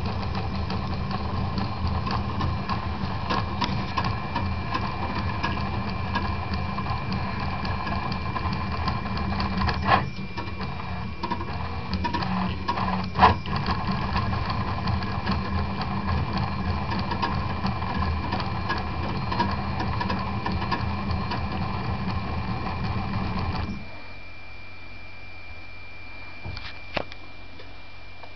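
Prusa Mendel 2 RepRap 3D printer's stepper motors driving the axes as it prints, with a steady high whine and a couple of sharper clicks. About 24 s in the motor noise stops abruptly, leaving only a quieter steady hum and the whine: the print has finished.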